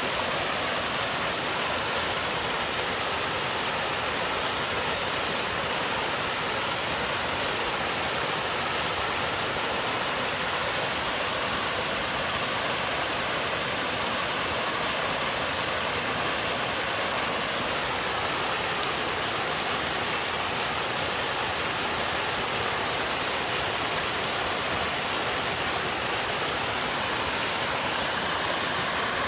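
Mountain-stream waterfall pouring over rock: a steady, unbroken rush of falling water.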